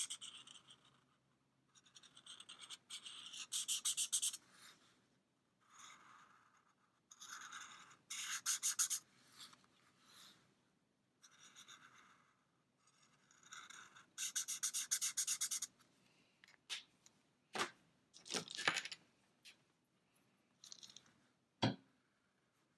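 Felt-tip marker scratching over a shrink-plastic sheet as petals are coloured in, in bouts of quick back-and-forth strokes lasting a second or two each. A few sharp clicks come near the end.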